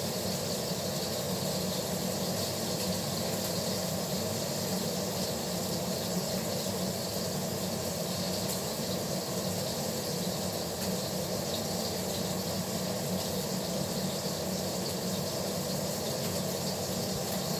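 Steak sizzling in a frying pan, a steady hiss, over a steady low hum.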